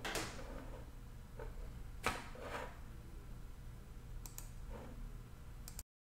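Quiet room tone with a low hum, broken by several soft knocks and rustles, the sharpest about two seconds in. The sound cuts off abruptly near the end.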